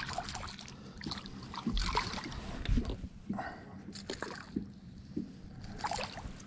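A small hooked bass splashing at the surface beside a boat's hull as it is brought in and lifted from the water, with irregular splashes and sloshing and some knocks and rustling of handling.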